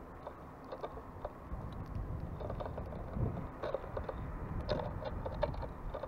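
Small birds feeding at a seed feeder: irregular light clicks and taps of pecking at seed, over a steady low rumble.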